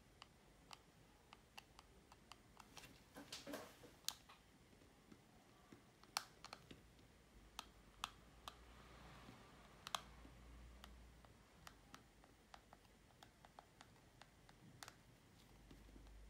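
Faint, irregular clicks and taps of a plastic card and fingertips working along the edges of a hydrogel screen protector on a smartwatch, pressing the film down.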